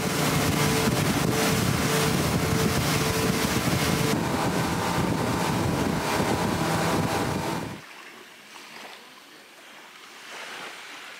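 Motorboat running fast over open sea: engine noise under rushing water spray and wind buffeting the microphone. About eight seconds in it cuts off abruptly to a much quieter, steady outdoor background.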